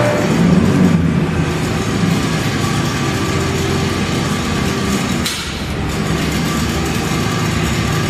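Steady mechanical drone, like an engine or a shop machine running, with one short burst of hiss about five seconds in.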